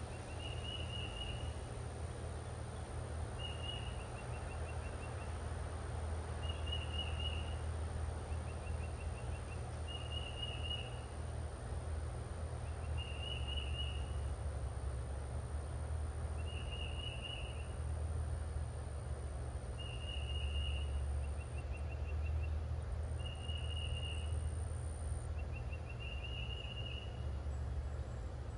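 Outdoor ambience: a steady low rumble under a short, high trilled call that repeats about every three seconds, with a thin steady high tone above it.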